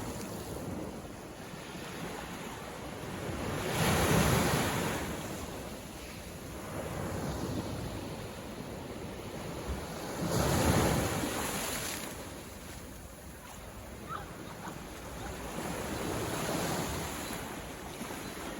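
Ocean waves breaking and washing in, the rushing noise rising and falling with each wave, with two louder breakers about four and ten seconds in.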